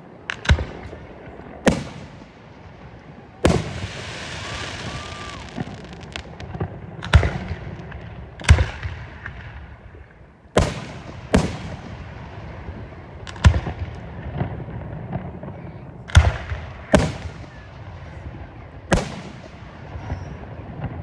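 Aerial fireworks shells bursting overhead: a series of sharp bangs, about one every second or two, some in quick pairs. After the bang about three and a half seconds in comes a hiss lasting a couple of seconds.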